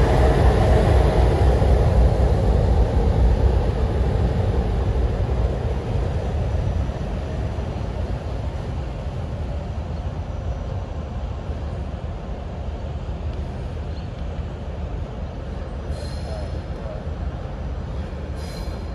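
Heritage diesel locomotive 4464, a New South Wales 44 class Alco, rolling past and away: the engine and wheel rumble is loudest at first, then fades over the first several seconds to a lower steady background.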